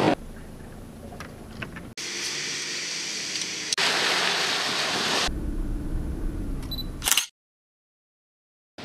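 Off-road 4x4 vehicles driving through mud and water, heard as a string of short clips that change abruptly every second or two, with engine noise and splashing. The last clip carries a low engine rumble, which ends in a short loud burst and then dead silence for the last second and a half.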